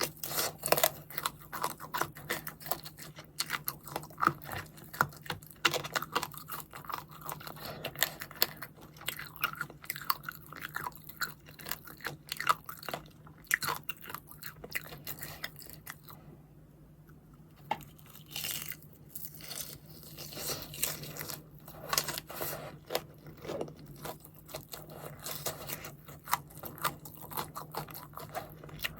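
Crispy fried chicken being bitten and chewed close to the microphone: dense crunching and chewing, with a short pause about halfway through. A faint steady low hum runs underneath.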